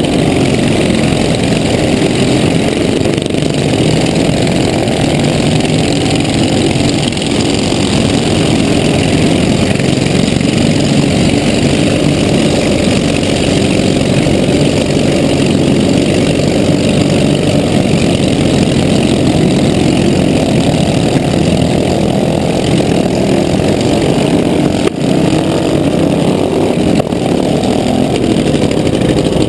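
Riding lawn mower's small engine running steadily, loud and close, with other mower engines running alongside.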